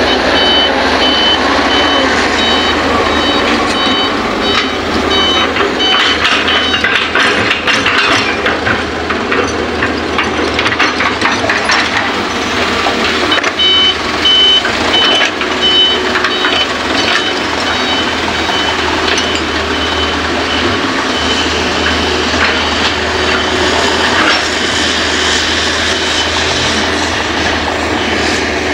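Hitachi excavator's diesel engine running under load while loading soil into a dump truck, with rapid clattering knocks of earth and stones dropping into the steel truck bed. A high, fast-pulsing warning beeper sounds for the first several seconds and again briefly about halfway through.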